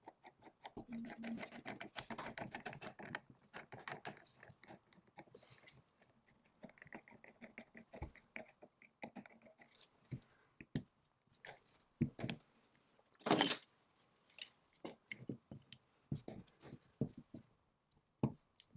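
Threaded brass and cast-iron parts of an early-1910s L. J. Wing Hypress blower being unscrewed by hand: a quick run of metal clicks and rattles as a fitting turns, a faint squeak partway through, then scattered clicks and knocks as the parts are handled, the loudest a single sharp knock.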